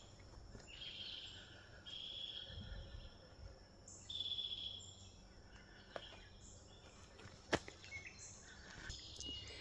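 Faint woodland ambience: several high, trilled animal calls, each lasting about a second, with a few light clicks between them.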